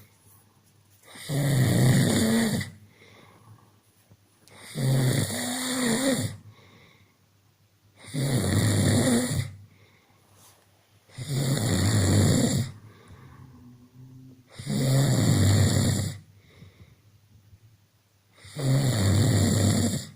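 A man snoring, six long rasping snores on the in-breath, one about every three and a half seconds, with quiet breathing between them.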